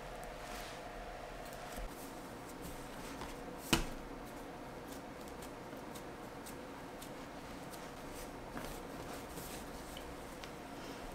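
Hands rolling, pressing and pinching a log of whole-wheat bread dough on a countertop: soft rubbing and light pats, with one sharp knock about four seconds in, over a faint steady hum.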